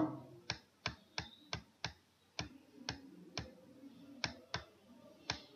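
Computer mouse button clicking about a dozen times at an uneven pace, sharp separate clicks, as handwriting is drawn stroke by stroke on an online whiteboard.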